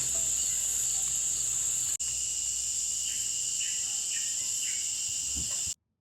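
Steady high-pitched night chorus of insects, with a few short chirps about halfway through; it cuts off just before the end.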